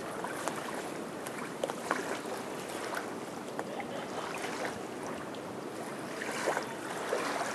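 Steady riverside ambience of moving water and light wind, with scattered faint clicks.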